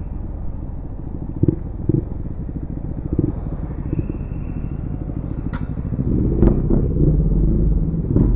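Motorcycle engine running at low speed, a steady low rumble that grows louder about six seconds in, with a few short clicks along the way.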